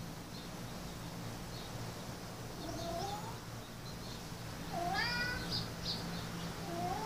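Domestic cat meowing three times, short calls that rise in pitch, about two seconds apart, the middle one the loudest.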